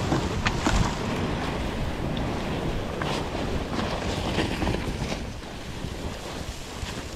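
Snowmobile riding: the Polaris Khaos Slash 9R's two-stroke engine runs under a steady rush of wind on the microphone, with a few sharp taps along the way.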